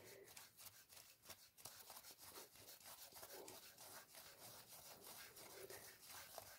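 Near silence, with faint scratchy rubbing as a rag is handled against the engine's metal casing.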